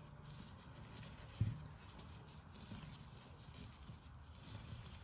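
Faint rustling of gloved hands folding a plaster of Paris bandage into a layered wedge, with one soft thump about a second and a half in.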